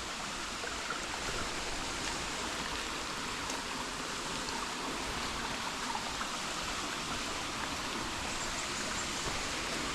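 Steady rush of running water from a jungle stream, an even wash with no breaks.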